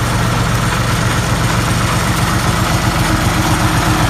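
Ashok Leyland tourist bus's diesel engine idling steadily, just cold-started after standing unstarted for about three to four months.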